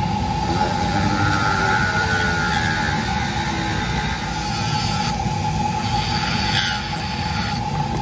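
Flexible-shaft rotary carving tool spinning a Kutzall burr that grinds into a cottonwood carving to hollow it out: a steady motor whine under a rasping cutting noise that wavers in pitch and comes and goes.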